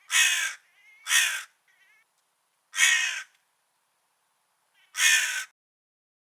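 Crow cawing: four harsh caws about half a second each, at uneven intervals with short silences between them.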